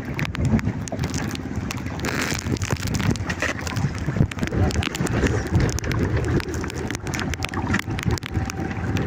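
Strong wind buffeting the microphone and heavy rain falling on a small boat and the water, with many short knocks and taps throughout.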